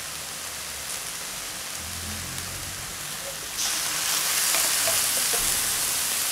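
Salmon and vegetables sizzling in a hot wok. About three and a half seconds in, the sizzle turns suddenly louder and hissier as thick coconut milk from a can lands in the hot wok.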